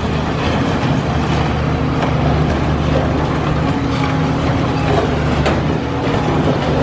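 Caterpillar high-reach demolition excavator's diesel engine running steadily under load, with scattered knocks and cracks of concrete and debris breaking as the building is pulled apart.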